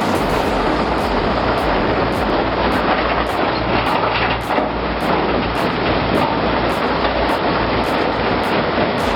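Heavy machinery running with a dense, steady rumbling noise, with a regular faint click about twice a second above it.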